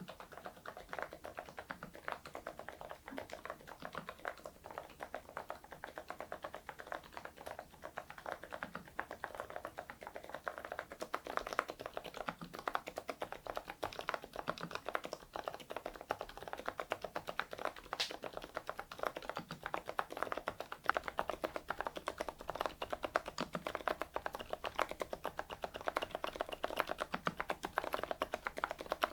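Mechanical keyboard with thick PBT cherry-profile keycaps being typed on quickly and continuously, a dense run of key clacks.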